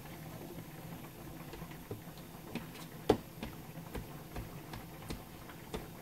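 Chef's knife chopping through a thin egg omelette sheet onto a cutting board: short, irregular knife taps, about one every half second to a second, the loudest about three seconds in.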